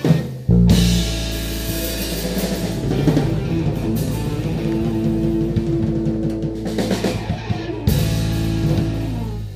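Live blues band of electric guitar, electric bass and drum kit playing a song's ending: a sustained held chord with busy drumming and cymbals underneath, a last accented hit near the end, then the band stops.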